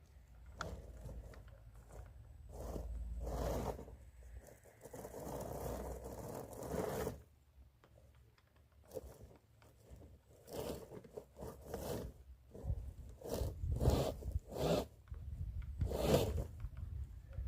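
RC rock crawler working over rough ground, its tyres crunching and scraping on dirt and stones in irregular bursts. There is a quiet pause in the middle, and the bursts come shorter and more often in the second half.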